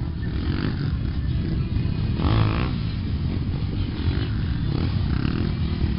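Car sound systems blasting bass-heavy music at very high volume, the low end dense and distorted on the microphone, with a brief wavering pitched sound cutting through about two seconds in.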